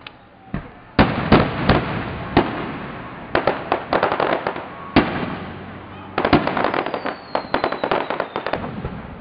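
Aerial fireworks display: a run of sharp booms from about a second in, with bursts of rapid crackling, and a thin whistle falling slowly in pitch during the second half.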